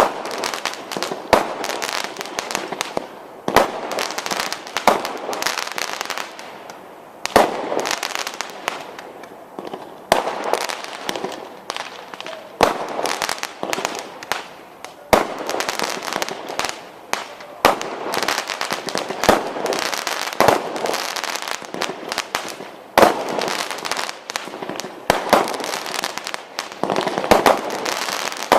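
Consumer fireworks going off in a continuous barrage: rapid crackling and popping with louder bangs every second or two.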